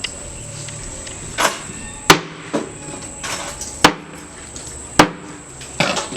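A series of sharp, hard knocks or strikes, irregularly spaced: three loud ones and a few softer ones, like hammering or chopping.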